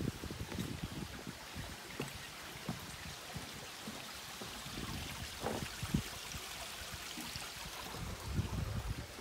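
Footsteps thudding irregularly on a wooden boardwalk as someone walks along, over a steady background hiss.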